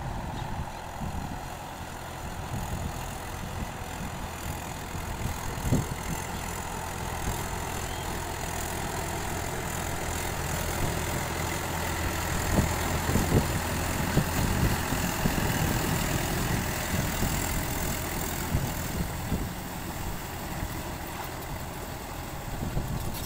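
Mahindra 595 Turbo tractor's four-cylinder diesel engine running steadily under load as it drags a leveling board through a flooded paddy field. It is louder around the middle as the tractor comes nearer, then eases off as it moves away.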